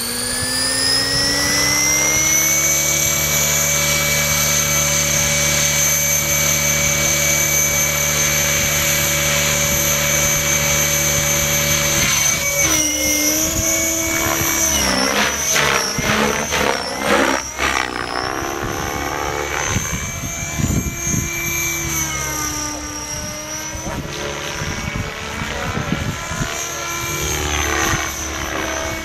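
Align T-Rex 600E electric RC helicopter: the whine of its motor and rotor rises over the first two seconds as it spools up, holds a steady pitch, then from about twelve seconds in swings up and down in pitch in flight.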